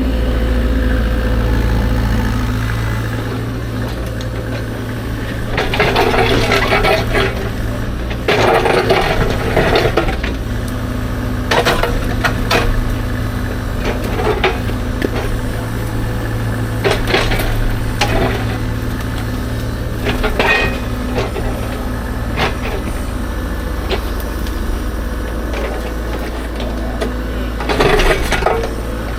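CAT 305.5 mini excavator's diesel engine running steadily under load while the bucket digs at dirt and rock, with several rough scraping spells and scattered sharp clunks of rock against steel.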